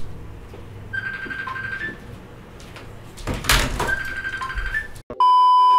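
A loud, steady electronic beep lasting about a second cuts in from silence near the end, after two short pitched electronic tones and a single knock of handling.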